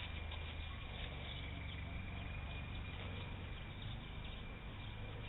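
A dog nosing and licking at a torn plastic sour cream packet: faint soft wet clicks and crinkles over a steady low rumble.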